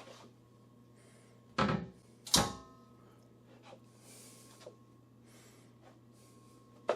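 Two sharp metallic clunks less than a second apart, the second ringing briefly, then a fainter click near the end, over a steady low hum.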